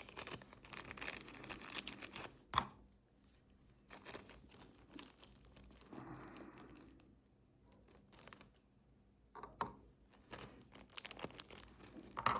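Faint rustling and small clicks of hands handling small lighter parts and rubber seals, with a sharper click about two and a half seconds in.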